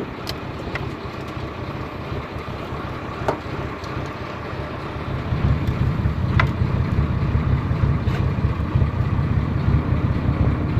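A boat's diesel engine running with a low rumble that grows louder about halfway through. A few light knocks sound over it.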